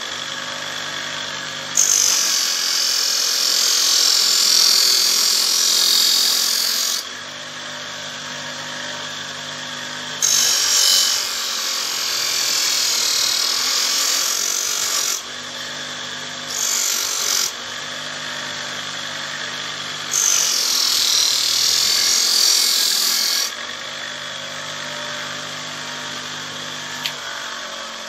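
Electric knife-sharpening machine running steadily, with four stretches of loud high grinding hiss as a blade is pressed against the abrasive. The longest pass runs about five seconds and the others are shorter.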